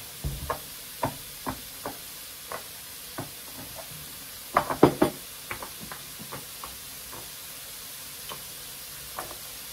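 Pork belly and beef sizzling on an electric tabletop teppanyaki grill plate, with a steady hiss and scattered sharp pops of spitting fat. A louder cluster of knocks comes about five seconds in.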